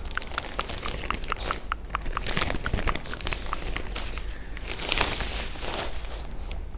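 Plastic clothing packaging crinkling as it is handled, with a run of short sharp clicks and a louder rustle about five seconds in.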